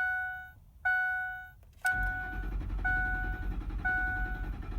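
A 2004 Ford F-150's dashboard warning chime dings twice, then about two seconds in the starter cranks the 5.4L V8 with a steady, even rumble while the chime keeps sounding about once a second. The engine turns over but does not catch: a no-start the owner traced to a failed, rusted-through fuel pump driver module.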